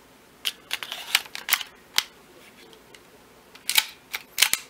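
Sharp metallic clicks and clacks of a Browning Hi-Power replica model gun's mechanism being worked by hand. The clicks come in a quick cluster about half a second in, one more a moment later, and another cluster near the end.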